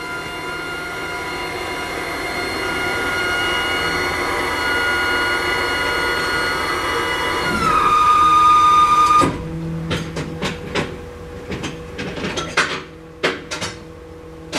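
Powered rear tailgate of an enclosed car-transporter trailer being lowered: its hydraulic pump motor whines steadily, drops in pitch after about seven and a half seconds, and cuts off about nine seconds in. A few clanks and clicks follow.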